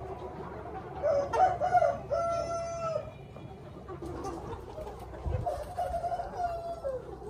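Young Minh Du cockerels, about 80 days old, crowing twice: a long held call about a second in and another near the end that drops in pitch as it finishes, over a flock clucking.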